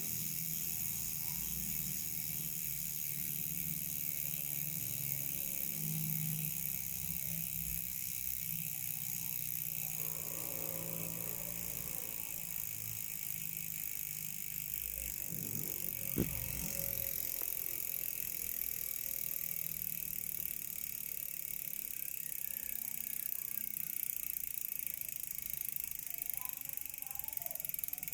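Six-pawl freehub of an LDCNC rear hub buzzing steadily as the wheel freewheels, with one sharp knock about sixteen seconds in.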